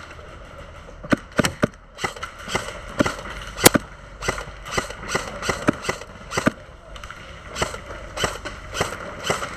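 Airsoft guns firing single shots in a steady exchange: sharp cracks at irregular intervals, about two a second, with one much louder shot about three and a half seconds in.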